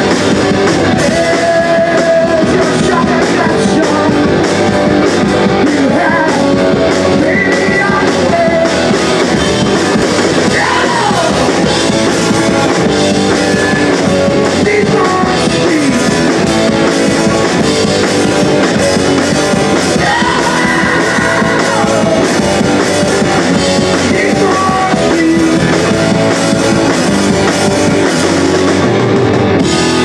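Live rock band playing loudly: electric guitars, bass and a drum kit.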